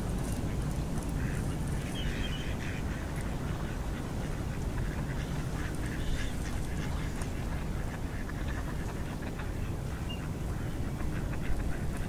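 Ducks giving short, scattered quacks over a steady low rumble.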